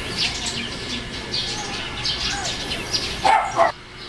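Small birds chirping in quick, repeated short notes, with two short, loud calls from an animal or person a little after three seconds in.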